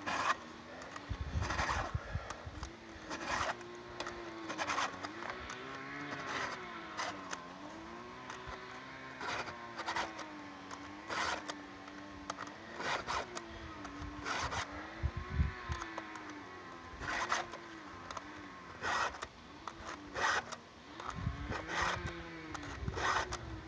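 Hand file rasping across a chainsaw chain's cutters in short strokes, about one every second or so, as the chain is sharpened tooth by tooth. Under it, a distant chainsaw runs, its engine pitch rising and falling slowly.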